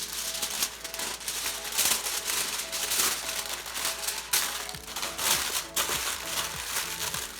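Aluminium foil crinkling and crackling as it is folded tightly shut around a food parcel, over soft background music.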